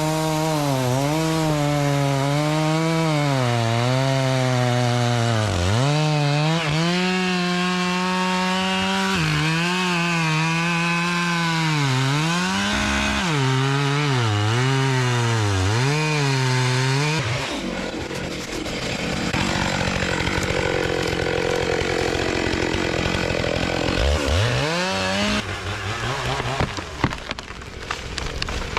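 Two-stroke chainsaw cutting into a big tree at full throttle, its pitch dipping again and again as the chain bogs in the cut and recovering as the load eases. About 17 seconds in the steady engine note gives way to a long rushing, crackling noise, then the saw revs up briefly, falls away, and scattered cracks follow near the end.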